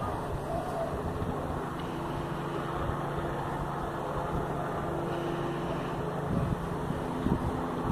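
Helicopter flying overhead, a steady drone of rotor and engine with a low hum, mixed with wind noise on the microphone.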